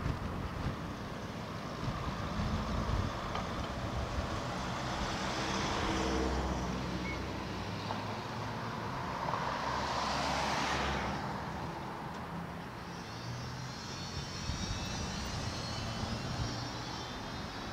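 Street traffic: a steady low rumble with two vehicles passing, about six seconds in and a louder one about ten seconds in.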